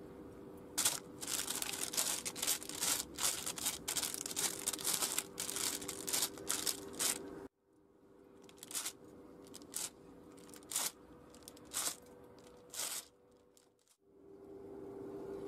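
Baking paper crinkling as hands press and stretch bread dough out flat on it: dense crinkling for several seconds that cuts off suddenly, then about five separate crinkles roughly a second apart.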